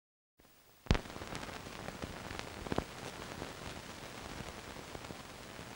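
Surface noise of an old film print's soundtrack: steady hiss with scattered crackles and pops, beginning with a sharp loud click about a second in.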